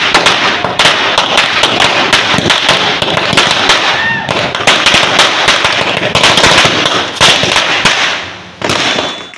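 Firecrackers going off on the ground in a rapid, dense string of bangs and crackles for about eight seconds, then thinning out, with one last short burst before they stop near the end.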